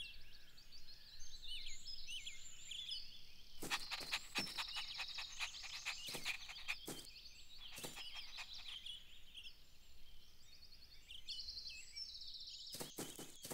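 Soft outdoor birdsong ambience: birds chirping and trilling, with a few sharp clicks scattered through.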